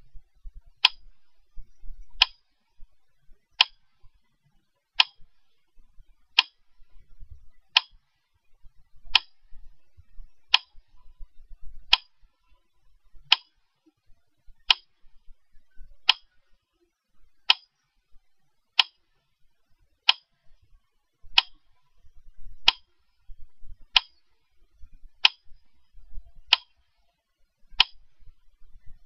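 Steady ticking: a sharp tick about every 1.4 seconds, evenly paced.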